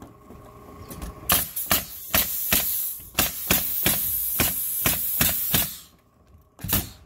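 Pneumatic framing nailer firing a fast string of nails into a plywood subfloor, about three shots a second, each with a sharp bang and a hiss of air. It pauses, then fires one more shot near the end.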